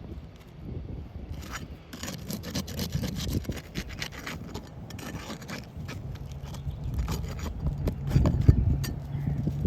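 Asphalt roof shingles being lifted and pried up, with irregular scraping and rubbing strokes and loose granules scattering off the weathered shingles. A low steady hum joins in partway through.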